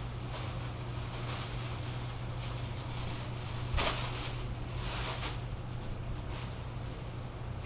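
Rustling and handling noises from unboxing boat parts and packaging: several short swishes and one louder knock near the middle, over a steady low hum.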